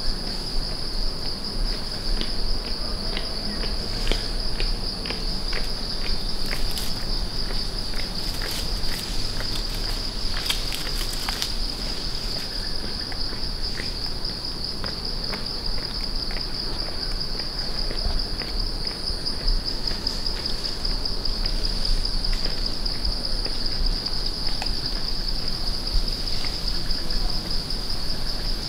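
A steady, high, shimmering buzz of insects calling in the forest. In the first half it comes with a scatter of faint short clicks and crackles.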